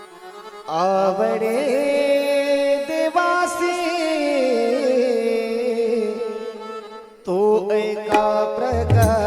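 Devotional bhajan singing: a long wordless, wavering vocal phrase held over a steady harmonium drone. Near the end drum strokes and cymbal clicks come in as the accompaniment picks up.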